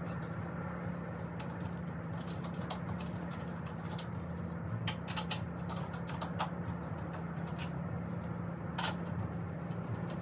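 Scattered, irregular light clicks and taps of gloved hands handling parts and tools on an engine, over a steady low hum.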